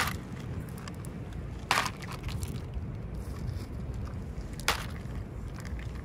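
An animal crunching dry kibble from a plastic tray: fine crackly chewing, with three sharper cracks at the start, just under two seconds in and just under five seconds in. A low rumble runs underneath.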